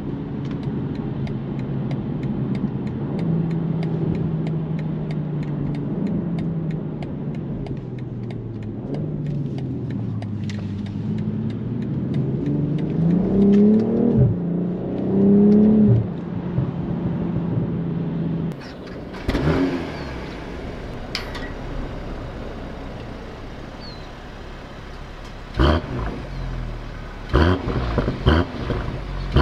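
BMW M440i's turbocharged inline-six running under steady load, then climbing in revs twice in quick succession, each climb falling back sharply, before the engine note eases off. Several sharp knocks follow near the end.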